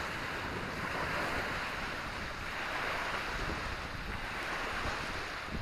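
Waves washing on a shore: a steady rush of surf that swells and eases every couple of seconds, with wind buffeting the microphone.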